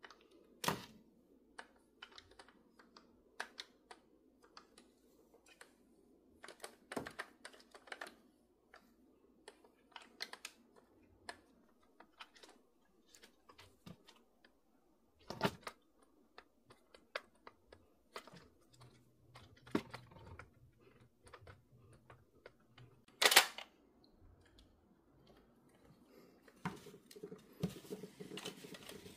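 Irregular light clicks and knocks of a coffee machine's plastic brew group and a small grease tube being handled while the red gasket is greased, with one louder knock late on. Paper tissue rustles near the end as the grease is wiped.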